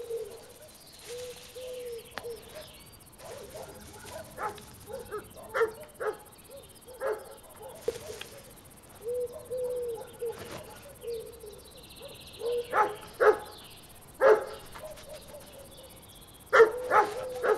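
Young European hamsters foraging among cereal stalks: a run of short, sharp sounds at irregular intervals, with a cluster near the end.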